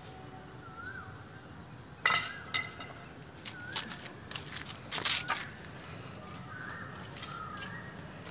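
Leaves rustling and crackling in short sharp bursts, loudest about two seconds in and around five seconds, over faint short whistled bird chirps repeating in the background.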